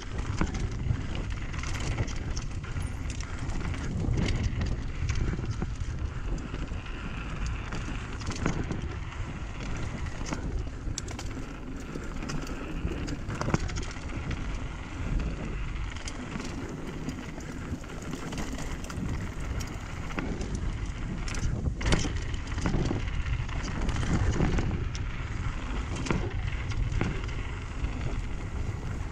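Mountain bike ridden fast down a rocky dirt singletrack: wind rushing over the on-bike microphone, tyres rolling and crunching over dirt and stones, and frequent clicks and rattles from the bike as it hits rocks.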